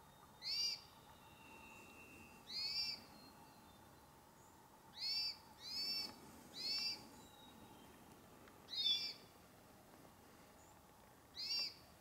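A bird giving short calls, each a quick rise and fall in pitch, seven times at uneven gaps of one to two and a half seconds.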